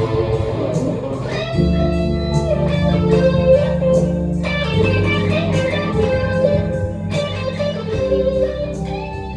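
Electric guitar played in a blues jam, chords and single-note lines over sustained bass notes and a steady ticking beat. The music starts to fade near the end.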